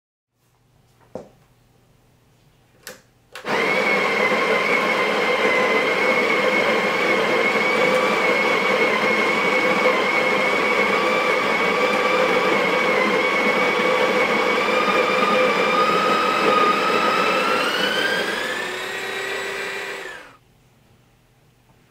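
Breville espresso machine's built-in burr grinder grinding coffee into the portafilter: a steady motor whine lasting about 17 seconds that rises in pitch and drops in level near the end, then cuts off. Two light clicks come just before it starts.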